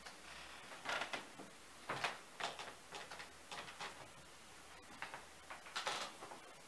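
Footsteps on a wooden parquet floor: a series of short, uneven scuffs and knocks, loudest about a second in, two seconds in and near the end.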